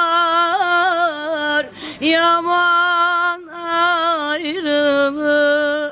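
A woman singing a slow song unaccompanied, holding long notes with small ornamented turns, pausing briefly for breath about two seconds and three and a half seconds in.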